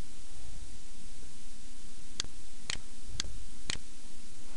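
Four computer mouse button clicks, evenly spaced about half a second apart in the second half, over a steady low hum.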